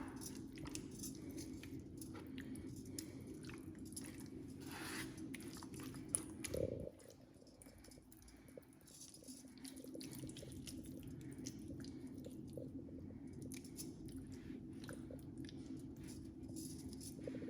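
Faint handling noises: scattered soft clicks and squishes over a low steady hum, with one louder knock about six and a half seconds in.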